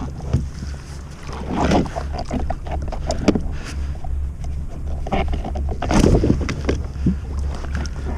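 Water sloshing and splashing against the plastic hull of a Galaxy Kayaks Alboran FX sit-on-top kayak, with a few louder splashes, about two seconds in and again about six seconds in. Wind rumbles on the microphone throughout.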